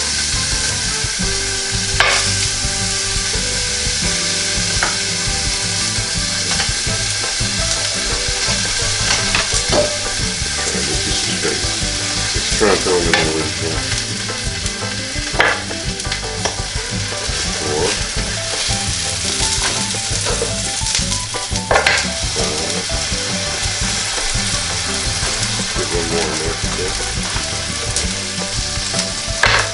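Pancakes and frozen sausage patties sizzling steadily in a NuWave Medley XL electric skillet heated to 350°F. A spatula clicks against the pan a few times.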